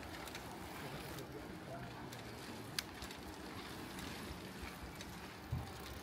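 Faint steady wind and rolling noise from riding a bicycle outdoors, with one sharp click about three seconds in.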